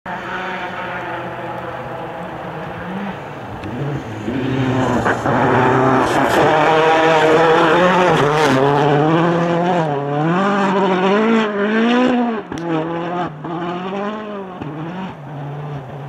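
A rally car's engine running hard as the car comes up and passes close by. As it drives away the revs rise and fall repeatedly through gear changes and corners, with a couple of sharp cracks.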